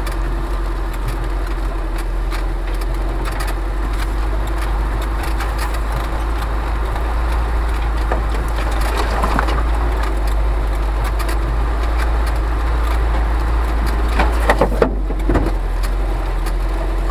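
Off-road vehicle engine running steadily at low speed as it pushes through dense brush. Branches scrape and knock against the body, with a burst of louder knocks and scrapes about fourteen seconds in.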